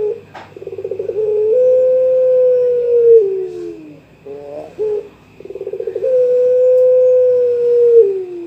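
Young puter pelung (Barbary dove) cooing twice: each call opens with a rapid stuttering run, then a long held coo that slides down at the end, with short broken notes in between. It is the dove's call to a rival.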